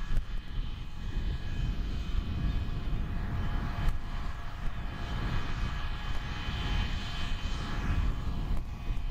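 Camera drone's propellers whining steadily, several even high tones held over a constant low wind rumble.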